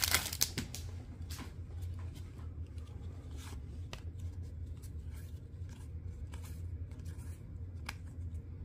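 Foil trading-card pack wrapper crinkling as it comes open, then a stack of hockey cards being slid and flipped through by hand: soft scrapes and light flicks of card stock every second or so, over a steady low hum.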